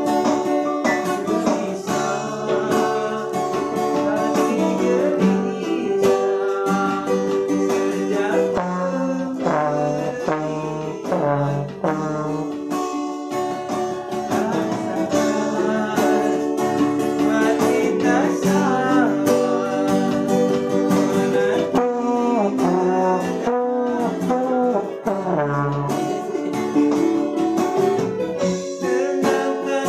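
Trombone playing a melody with held notes and slides over a strummed acoustic guitar, in an unamplified dangdut band rehearsal.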